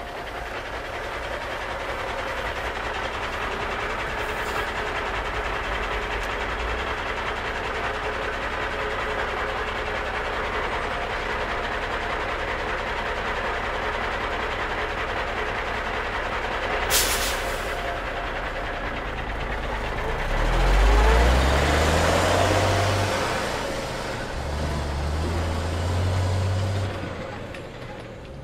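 Truck driving noise: a steady rumble and hiss, with a sharp click about two-thirds in, then an engine revving up in steps twice near the end.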